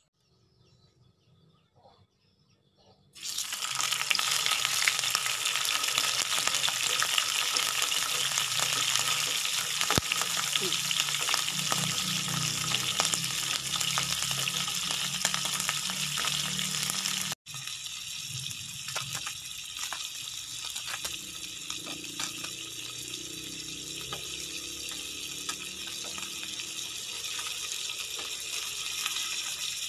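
A whole fish sizzling as it fries in shallow oil in a nonstick pan. The loud, steady sizzle starts suddenly about three seconds in, as the fish goes into the hot oil. It drops out for an instant past the halfway point and comes back a little quieter.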